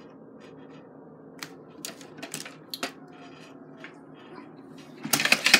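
Plastic Lego Technic parts clicking and rattling as the model is handled and its mechanisms moved: a few scattered clicks, then a quick, louder burst of clatter near the end.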